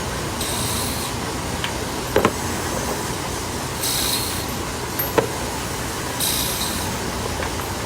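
Factory machinery running steadily, with a short hiss about every two to three seconds, three in all, and two sharp metallic knocks, the first about two seconds in and the second about five seconds in.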